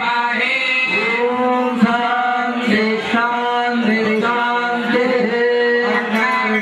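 A man's voice chanting a mantra in long, held notes with small rises and falls in pitch, continuous throughout.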